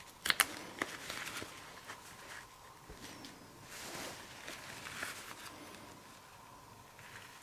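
Small sharp metal clicks, then softer scraping and rustling as gloved hands work the piston assembly out of an ATE brake master cylinder. The clicks come about half a second in and again just under a second in; the handling noise fades toward the end.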